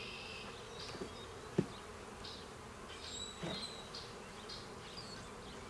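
Honey bees buzzing steadily around an open hive, with one sharp click about one and a half seconds in.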